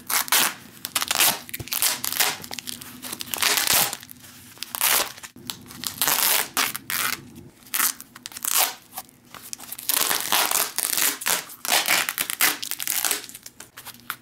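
Black plastic wrapping crinkling and tearing as hands pull at a tightly taped parcel, in uneven scrunches with short pauses between.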